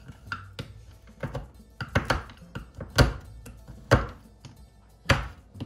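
Chef's knife chopping a bar of dark chocolate on a wooden cutting board: irregular sharp knocks of the blade striking the board, roughly one a second, the loudest near the middle and end. Background music plays under the chopping.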